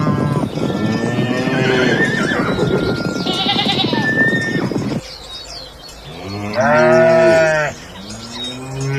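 Farm animal calls played one after another: a long, rough, pitched call for about five seconds, then a shorter loud call about seven seconds in and another near the end.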